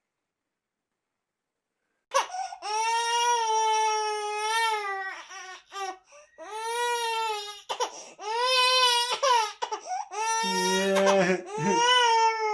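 An 18-week-old baby crying: after about two seconds of silence, loud high-pitched wails begin, each lasting two to three seconds with short gasping breaks between them.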